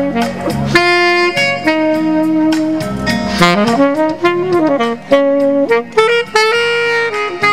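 Saxophone played live in a jazzy style: a melody of held notes and quick runs, with a sliding rise in pitch a little over three seconds in.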